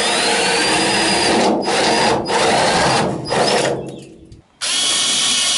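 Cordless drill boring a hole through a car's sheet-metal bonnet. It runs in long bursts with a few brief breaks, spins down a little after three seconds and starts again about a second later.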